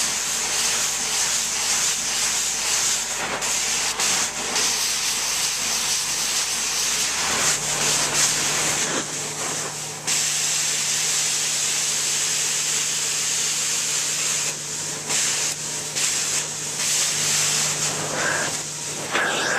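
Carpet extraction wand rinsing a carpet: a steady hissing rush of water spray and suction over the low hum of the extraction machine, dipping briefly a few times between strokes.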